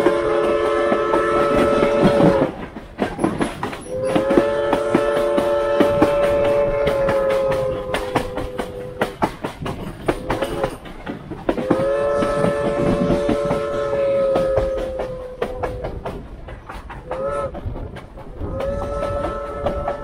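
The chime whistle of steam locomotive Reading & Northern 425 blowing a series of long and short blasts, several notes sounding together with the pitch sagging slightly as each long blast ends. The long-long-short-long run is the grade-crossing signal. Clickety-clack of the wheels on the rail joints goes on underneath.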